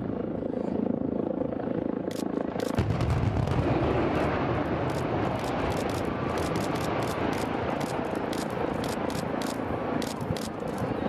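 Explosive demolition of a high-rise tower block. A rapid, irregular string of sharp cracks from the charges begins about two seconds in and keeps crackling through the rest. From about three seconds in, a heavy low rumble from the building collapsing into its own dust runs beneath the cracks.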